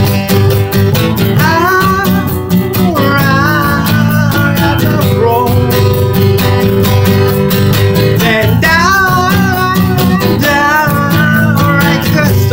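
Steel-string acoustic guitar (a Martin D-28) strummed steadily in a song accompaniment, with a singing voice over it in two long sung lines, the pitch wavering.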